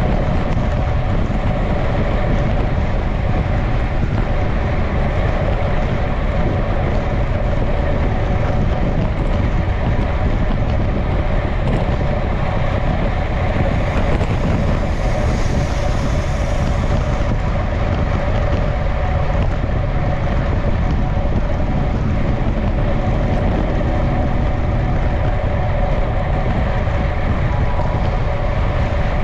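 Wind rushing over the microphone of a road racing bike moving at about 45 km/h, a steady low rush with a brief higher hiss around the middle.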